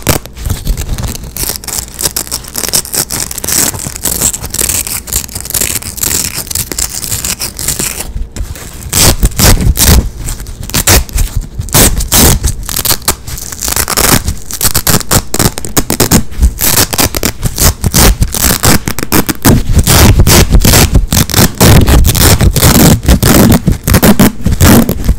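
Hook-and-loop (Velcro) straps being ripped apart fast and repeatedly, right against the microphone: a quick run of scratchy tearing strokes that gets louder and denser about a third of the way in.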